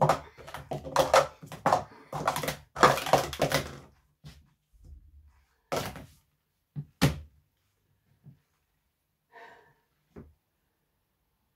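Sport-stacking cups on a Speed Stacks mat in a timed 3-6-3 run: a fast clatter of hard plastic cups knocking and sliding as they are stacked up and down. After a few scattered knocks, hands slap the timer's touch pads about seven seconds in to stop it.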